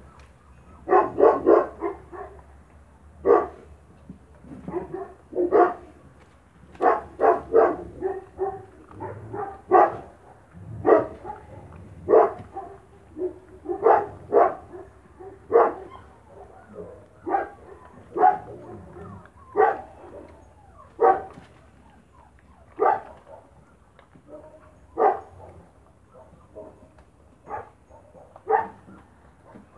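A dog barking repeatedly in short barks, one every second or two, thinning out toward the end.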